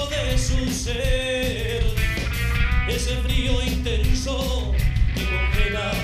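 Rock band playing live with a male lead singer over distorted electric guitars, bass and a steady drum beat.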